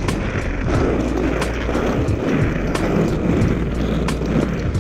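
Inline skate wheels rolling at speed over rough, uneven paving: a steady rumble with sharp ticks a few times a second.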